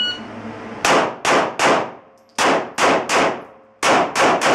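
Shot timer's start beep, then nine handgun shots fired in three quick strings of three, each string a double-quick pair plus one, with a short pause between strings: a three-shots-per-target drill across three targets.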